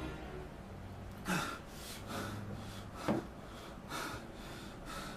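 A man breathing audibly after drinking water: a few short gasps and exhales, spaced about a second apart.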